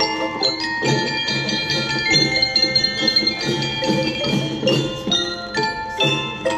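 School drum and bell-lyre band playing: glockenspiel bell lyres ring out a melody of bright struck notes over a steady marching drum beat.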